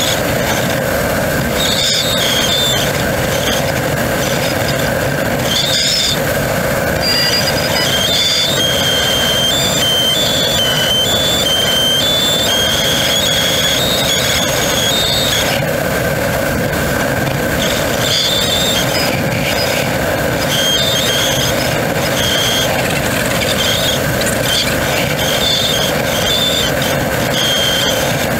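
Steady rush of air around the cockpit of a Twin Astir (Grob G103) glider in flight, with high whistling tones that come and go and shift in pitch, one held for several seconds near the middle.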